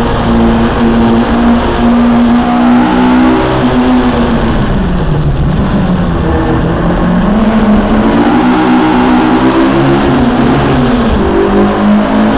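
Car engine heard from inside the cabin at track speed: held at high revs, then falling steeply about four to five seconds in as the car slows for a corner, then climbing again as it accelerates out, with a gear change near the end. Road and wind noise run underneath.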